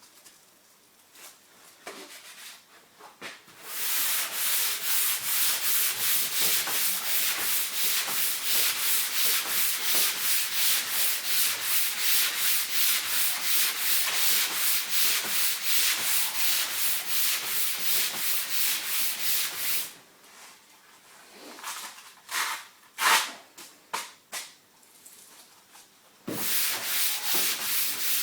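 400-grit sandpaper rubbed back and forth over sandable car primer on a hood panel, in quick, even strokes about three a second. The strokes stop for several seconds with a few sharp knocks, then start again near the end.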